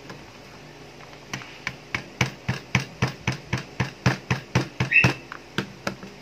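A hammer tapping repeatedly on the plastic slide of a spring airsoft Glock 18 Q1 pistol, driving a small locking part back into the slide. About seventeen sharp taps, roughly three a second, start about a second in and stop just before the end.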